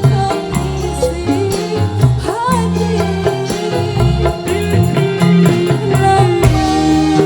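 Dangdut band music played live through a PA sound system, with a steady bass-and-drum beat under a melody line that glides in pitch about two and a half seconds in.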